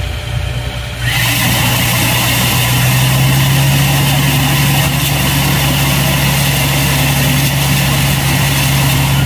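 Borewell drilling rig running: a steady low engine hum, joined about a second in by a loud, steady rushing hiss that cuts off near the end while the engine runs on.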